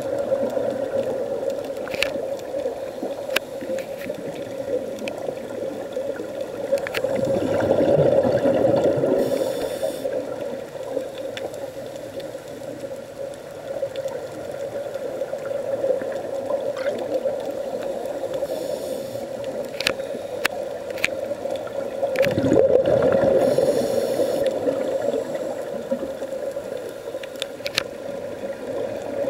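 Underwater sound of scuba divers breathing through regulators: exhaled bubbles gurgle and rumble in two louder swells, about seven and twenty-two seconds in, over a steady muffled hum, with scattered faint clicks.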